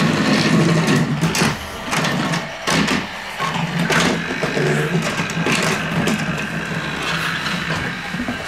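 Small electric motor of a battery-powered toy train running with a steady whir, with several sharp plastic clicks and clatters.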